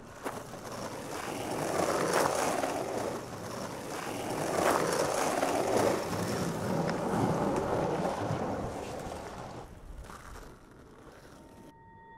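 Skateboard wheels rolling over pavement, building up, passing and fading away, with a few sharp clicks along the way. Near the end a steady ringing tone with overtones comes in.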